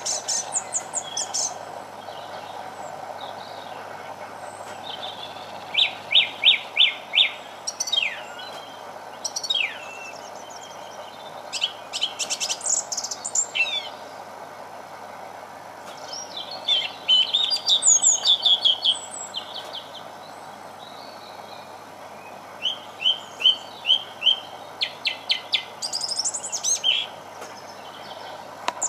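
Thrush singing: bursts of clear, high phrases, several built of quick runs of repeated notes, with pauses of a few seconds between them, over a steady background noise.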